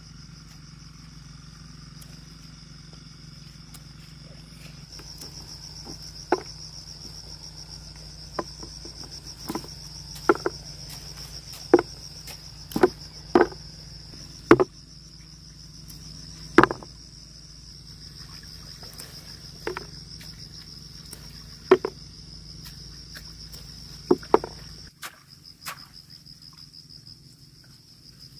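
Insects chirring steadily in a high, pulsing drone. Over it come about a dozen sharp, irregular clicks and knocks from peanut pods being plucked off the plant and dropped into a plastic basin.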